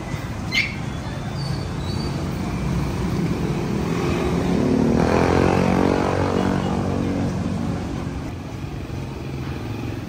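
Street traffic with a steady low rumble; a motor vehicle passes, its engine note rising and then falling, loudest about five to six seconds in.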